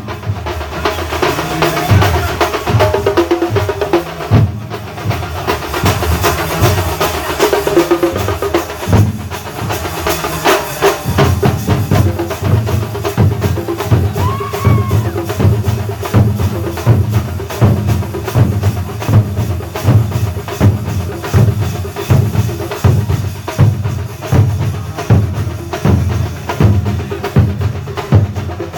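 Thambolam percussion ensemble playing a fast, dense drum rhythm. About eleven seconds in it settles into a steady beat of heavy low drum strokes, roughly two a second.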